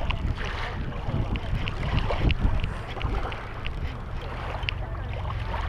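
Wind rumbling on the microphone and water lapping at the shore, with a light ticking that repeats about twice a second from the fishing reel as a hooked fish is reeled in.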